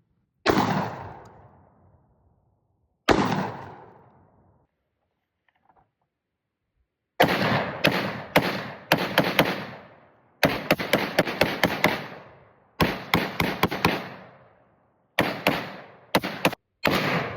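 Gunshots: two single shots a few seconds apart, then after a pause several rapid strings of shots. Each shot is followed by a long echoing tail.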